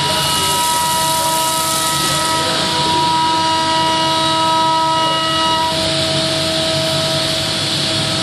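High-speed milling spindle with an Iscar cutter milling aluminium on a 2 mm wide cut. It gives a steady whine of several pitches over a constant hiss, and one of the pitches drops out a little past the middle.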